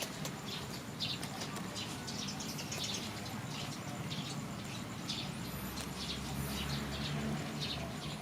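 Many short, high bird chirps repeating quickly, over a low steady hum that grows louder about five seconds in.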